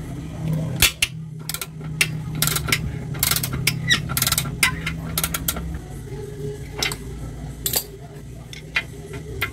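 Ratchet wrench on a socket extension clicking in short runs as a nut on the scooter's rear swing arm is worked loose, with sharp metal clinks of the tools; the clicking thins out after about five seconds. A steady low hum runs underneath.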